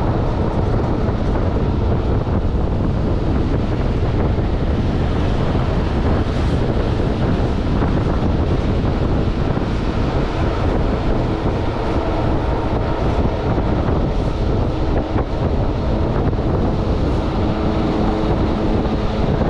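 A moving train's running noise: a steady rumble and rush with wind buffeting the microphone. A faint whine joins in during the second half.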